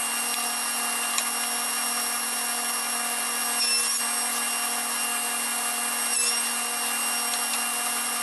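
Table saw running steadily with a high whine, cutting slots in boards pushed through on a jig; its pitch wavers briefly a few times as the blade takes the wood, and begins to fall near the end.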